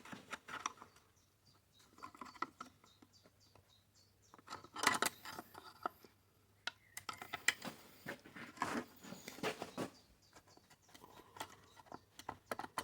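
Small clicks, taps and scrapes of chainsaw parts being handled and wiggled loose by hand, coming in short irregular clusters with quiet gaps between.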